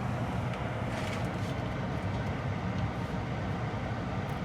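Furnace blower motor running steadily, a constant hum and rush of air, with the inducer motor off.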